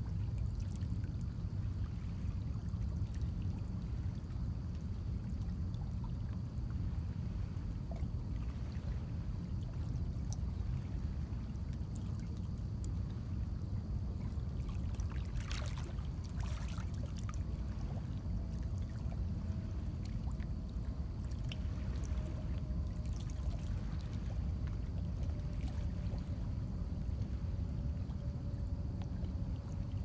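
Small lake waves lapping and trickling among shoreline rocks, with a cluster of sharper splashes about halfway through, over a steady low rumble of wind on the microphone. A faint steady hum joins in the second half.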